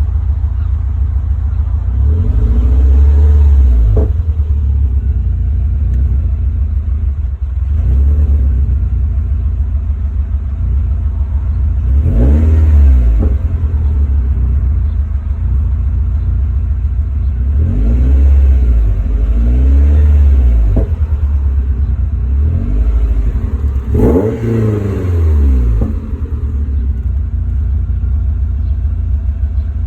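Car engine idling, with the rough idle it shows once warmed up, and the throttle blipped several times so the revs rise and fall back.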